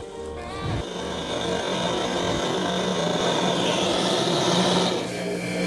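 Jeweller's gas torch flame blowing with a steady hiss over a silver ring whose seam is being soldered. The hiss eases about five seconds in.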